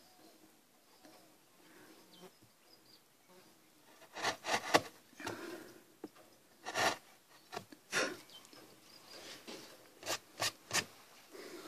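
Wood chisel pushed by hand through wood in short scraping cuts, about a dozen strokes at uneven intervals starting about four seconds in.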